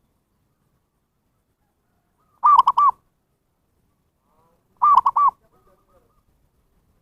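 Zebra dove (perkutut) cooing: two short phrases about two and a half seconds apart, each of three quick arched coos, used as a lure call for wild doves.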